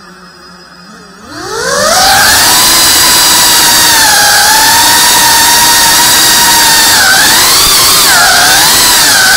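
FPV quadcopter's motors and propellers spooling up: a whine rising in pitch about a second in, then a loud, steady high whine that dips in pitch a few times near the end as the throttle changes.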